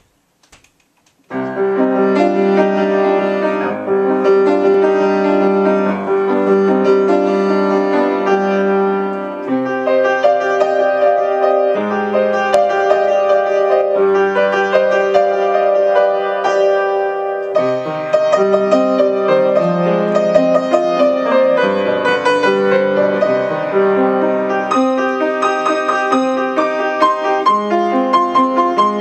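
Solo upright piano played, starting about a second in: chords over long-held bass notes, with a few brief breaks between phrases.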